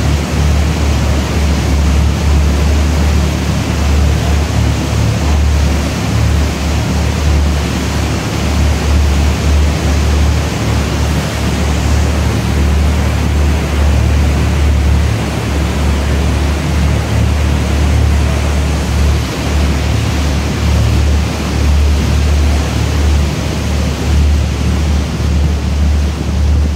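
Steady rumble and hiss aboard a moving canal tour boat: wind buffeting the microphone over the boat's motor and the water. The deep rumble flickers unevenly.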